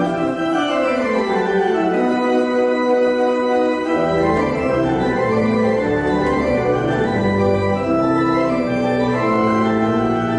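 Organ music with held chords. A run of notes falls in pitch over the first couple of seconds, and deeper bass notes join about four seconds in.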